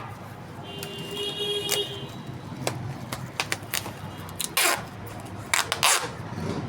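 Steady street-traffic hum with a vehicle horn sounding for about a second, starting about a second in. Near the end come a few short, sharp rasping noises.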